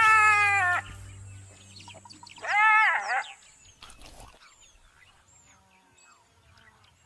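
Jackal giving two long, high wailing calls about two seconds apart, each rising then falling: a parent jackal scolding a predator at its den.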